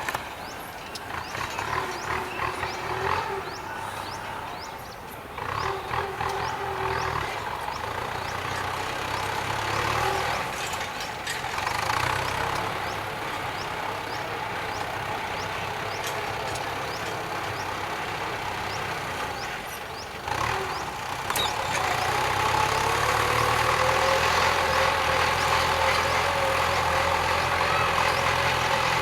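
Kubota M9540 tractor's diesel engine running as it works the field, its note rising and falling. About three-quarters of the way through it picks up and runs louder and steadier. Faint clicks and knocks are scattered through it.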